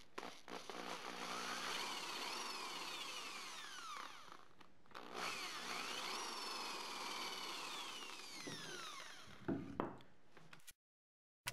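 Craftsman Evolv power drill boring pilot holes into a wooden 1x2, in two runs of about four seconds each, the motor's whine rising and falling as the trigger is worked. A few knocks of the wood pieces being handled near the end.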